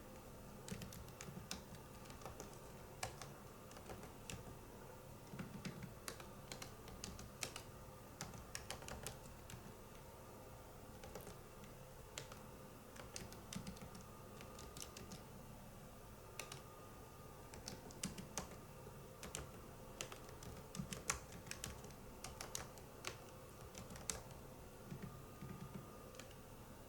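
Typing on a PC computer keyboard: quiet, irregular key clicks in uneven flurries with short pauses, the fingers hampered by focal dystonia.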